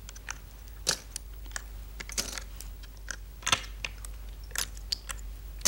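Go stones clicking as they are set on and taken off a wall-mounted demonstration board: a string of irregular sharp clicks, the louder ones about a second apart.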